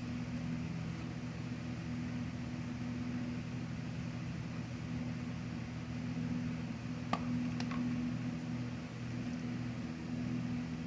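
Steady low mechanical hum, with a couple of faint metallic clicks about seven seconds in.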